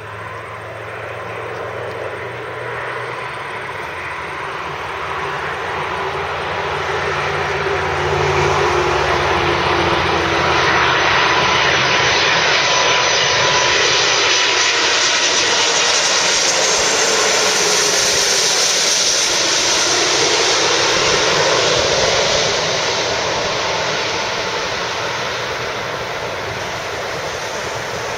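Airbus A330-300 airliner landing: its jet engines rush and whine, building up as it approaches, loudest around the middle, then easing off. A falling whine is heard as it passes.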